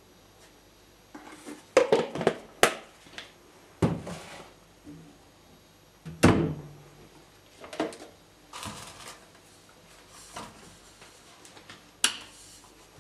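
Kitchen items being handled on a countertop: a run of knocks and clunks, the loudest about two seconds in and just after six seconds. A sharp click comes near the end as a hand reaches to a copper canister.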